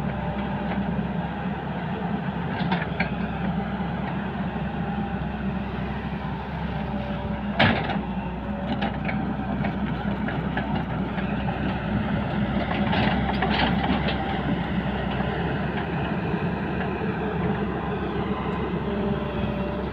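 Excavator's diesel engine running steadily as the boom and bucket work. A single sharp knock about a third of the way in, with a few lighter clicks around it.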